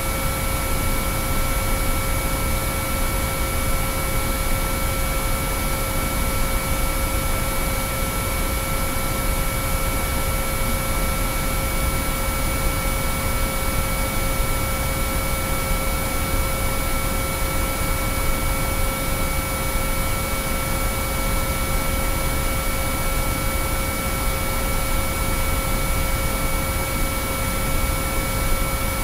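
Binaural-beat sine-wave tones: several pure tones, low and high, held over a constant even hiss of noise, with no change in pitch or level.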